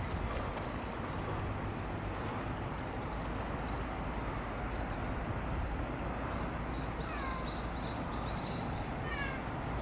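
Small birds chirping in quick series of short high notes, with a few falling whistles, over a steady low outdoor rumble.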